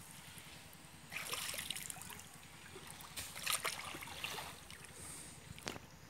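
Shallow muddy water sloshing around a person's legs as he wades, in a few soft surges about two seconds apart.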